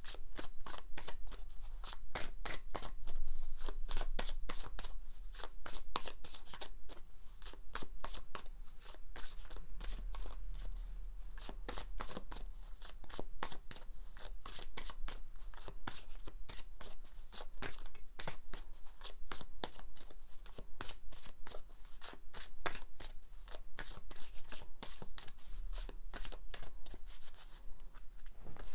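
A tarot deck being shuffled by hand: a continuous run of quick, crisp card clicks and slaps as cards are pulled through the deck.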